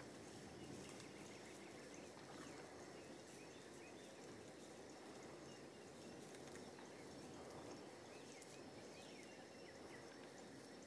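Near silence: faint outdoor ambience, with a few faint, short high chirps scattered through it.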